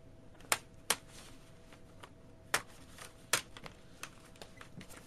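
Sharp clicks and light taps of a laptop LCD screen assembly being handled and worked with a plastic pry tool: two clicks close together near the start, two more around the middle, and a few fainter ticks after.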